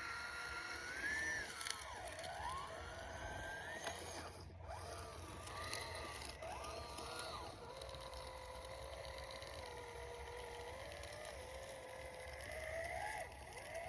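Brushless electric motor of a 1/18-scale Red Cat Scout II RC crawler whining as it drives, the pitch rising and falling with the throttle and holding lower and steadier for a few seconds in the middle.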